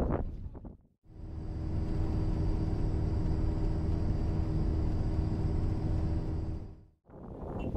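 Steady engine and road rumble of a moving vehicle, with a faint constant high whine above it. It fades in about a second in and fades out near the end.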